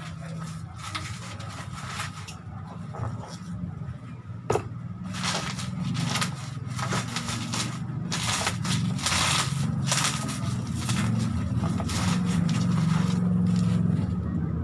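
Plastic and cardboard packaging being handled and crinkled while a microphone and sound card kit is unpacked: irregular crackling rustles, with a sharp click about four and a half seconds in, over a steady low hum.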